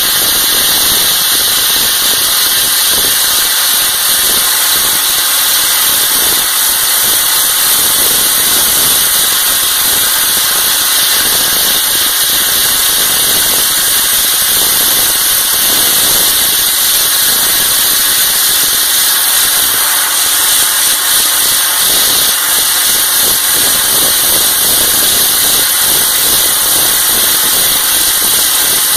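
Slurry (wet abrasive) blasting: a steady, loud hiss of the blast nozzle spraying a water-and-abrasive slurry against a painted concrete wall to strip the paint, with a fine crackle from the grit hitting the surface and an engine running underneath.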